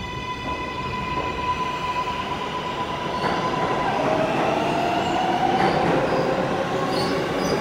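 R142-family New York subway train accelerating away from the platform. Its propulsion gives a steady high whine, and about four seconds in a lower tone takes over and climbs slowly, while the running noise of the cars grows louder as it picks up speed.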